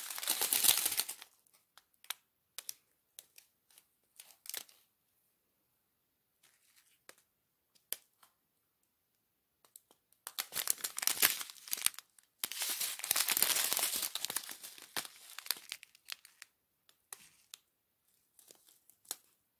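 Small clear plastic zip bags of round resin diamond-painting drills crinkling and rustling as they are handled. The loudest bursts come at the start and from about ten to sixteen seconds in, with scattered small clicks between.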